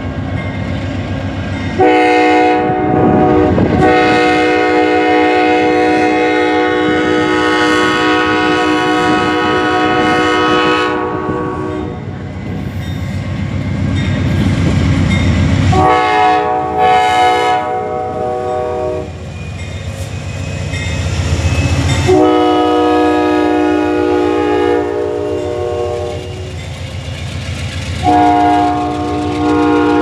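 Amtrak P42DC locomotive's five-chime K5LA air horn sounding a series of chord blasts, one short and then several long ones, the longest about eight seconds. Under the horn the locomotive and its passenger cars rumble as they roll out.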